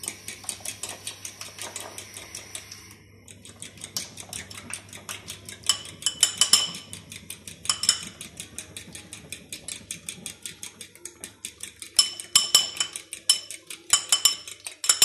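Metal fork whisking beaten eggs with sugar and salt in a glass bowl, striking the glass in fast, even clicks about five a second, each with a short glassy ring. The mixing goes on until the sugar dissolves into the egg, and it gets louder about six seconds in and again near the end.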